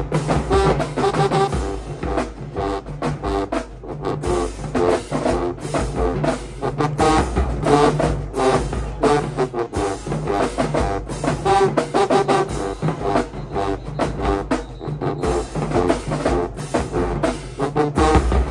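High school marching band playing, brass instruments carrying the tune over a steady beat of marching drums.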